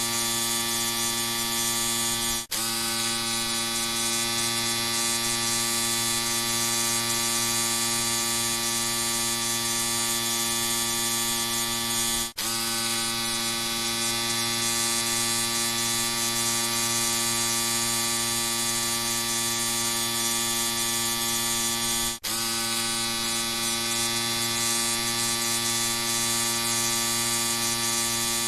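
Electric shaver running with a steady buzz. It cuts out briefly three times, about every ten seconds, and each time comes straight back, its pitch settling slightly.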